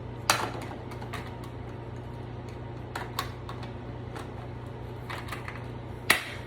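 Handling noises: a few scattered sharp clicks and knocks, the loudest about a third of a second in and another near the end, over a steady low hum.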